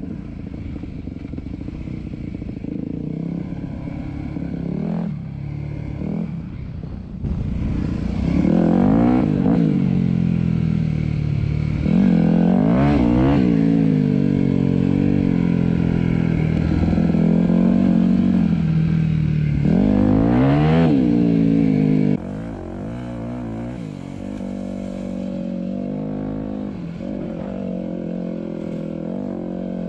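Dirt bike engine running on a trail ride, its revs rising and falling repeatedly as the rider throttles on and off. It grows louder about a quarter of the way in and drops back abruptly about three-quarters through.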